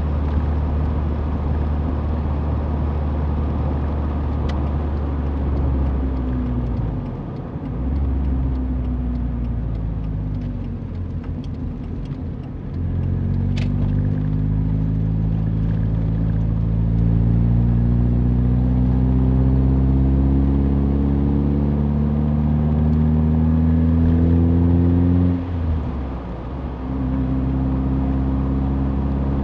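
Mazda Roadster's four-cylinder engine running under road and tyre noise. The engine note eases off about seven seconds in, then from around the middle climbs steadily in pitch as the car accelerates. Near the end it drops suddenly, as in an upshift, and then runs steady.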